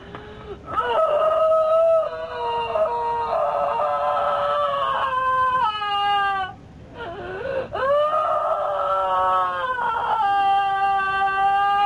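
A high voice wailing in long held tones, several in a row, each one bending down in pitch as it breaks off.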